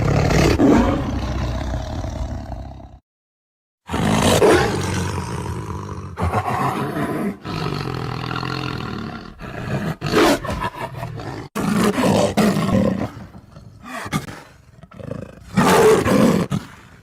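Werewolf growl sound effect: a run of deep, rough monster growls and roars, broken by about a second of silence some three seconds in and by shorter pauses after.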